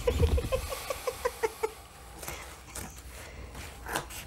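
A woman laughing in a quick run of short 'ha-ha' bursts for about a second and a half, then a few soft snips and rustles of scissors cutting fabric.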